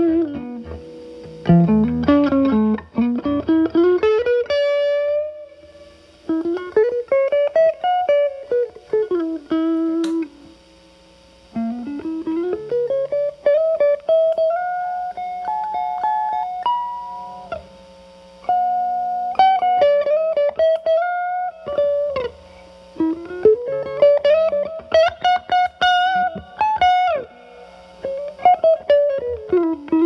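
Overdriven electric guitar: a Telecaster with alnico single-coil pickups, boosted by a Moollon compressor pedal into a Marshall Valvestate amp's drive channel, playing phrases of single notes that run up and down in pitch, with long held notes in the middle and short pauses between phrases.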